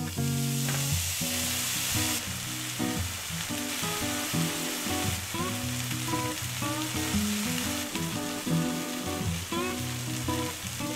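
Shredded cheese sizzling as it melts and fries in a hot nonstick pan, loudest at the start as it lands and again in the second half. Light background music plays throughout.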